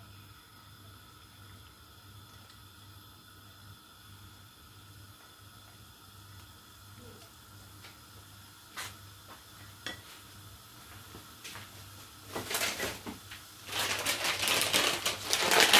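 Shredded garlic in olive oil in a non-stick frying pan, nearly quiet at first apart from a couple of light clicks, then starting to sizzle and crackle about twelve seconds in and getting loud near the end.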